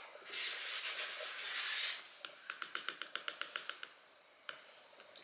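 A thin wooden stick scraping around the inside of a small ceramic ramekin as a thick balm is stirred, then a quick run of light taps against the bowl, about seven a second, and one more tap near the end.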